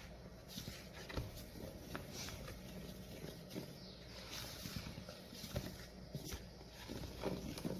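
Utensil stirring thick cake batter of flour and blended banana liquid in a mixing bowl, slowly, with soft irregular scraping and small knocks against the bowl.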